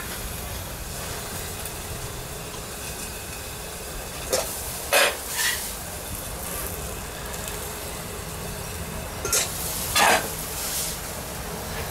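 Burger patties frying on a flat-top griddle with a steady sizzle. A metal spatula makes several short scrapes, a cluster about four to five seconds in and another near the end, as cheeseburger patties are lifted off.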